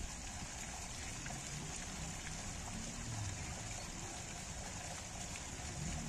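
Water from a spout in a stone wall pouring onto rocks: a steady splashing hiss.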